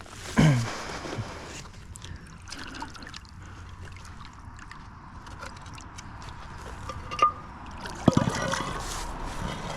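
Canal water trickling and sloshing as a heavy iron street bollard is hauled out of the water, with a short run of knocks and clatter about eight seconds in.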